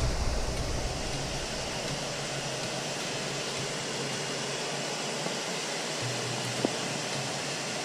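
Steady hiss of fish pieces deep-frying in hot oil.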